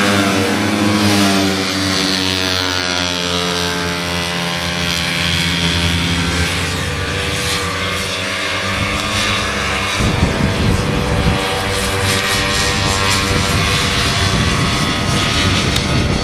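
Several vintage two-stroke racing snowmobiles running at high revs, their engine notes overlapping and dropping in pitch as sleds pass in the first few seconds. About ten seconds in, a rough low rumble joins them.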